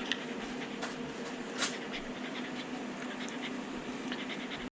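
Shiba Inu dog panting quickly on the day of her kneecap surgery, with a steady low hum underneath.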